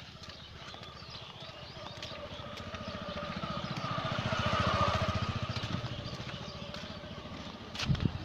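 A motorcycle engine passing close by, growing louder to a peak about halfway through and then fading away. A short thump near the end.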